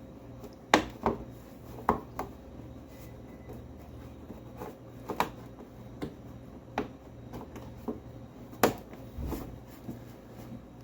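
Scattered sharp clicks and light knocks of hand tools, screws and plastic fairing panels being handled while a motorcycle's cowling is fastened back on. The loudest clicks come about a second in and near the end.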